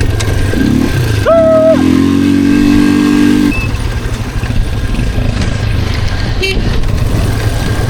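ATV engine running at a steady, higher note, then dropping to a low, uneven rumble about three and a half seconds in. A brief shout comes a little over a second in.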